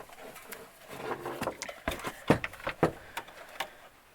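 Handling noise: a quick, irregular run of light clicks and knocks, the loudest a little over two seconds in, then dying away near the end.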